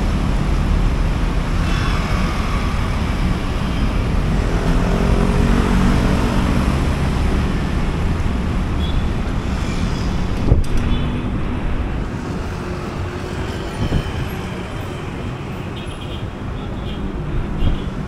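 Road traffic at an intersection: motor scooters and cars passing below, a steady rumble of engines and tyres. One engine's pitch rises and falls about a third of the way in. There are a few sharp clicks later on, and the traffic gets somewhat quieter in the last third.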